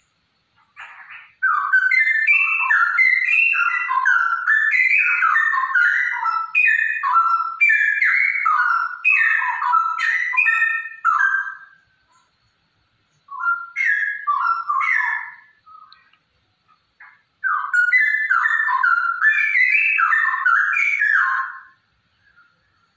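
Female straw-headed bulbul singing loud, rich warbling whistled phrases. A long outpouring lasts about ten seconds, a short phrase follows after a pause, then another burst of about four seconds.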